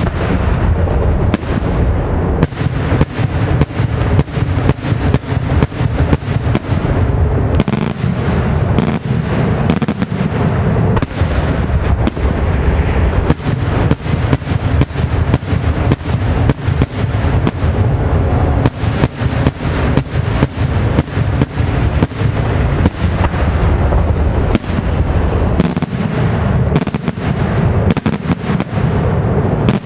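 Daytime fireworks: a dense, unbroken barrage of aerial shell bursts, many sharp bangs every second over a continuous deep rumble.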